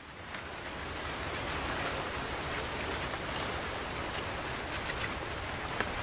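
Steady even outdoor hiss with no clear source, with a couple of faint ticks near the end.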